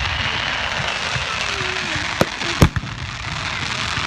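Fireworks going off: a steady hissing haze, with two sharp bangs in quick succession a little past halfway.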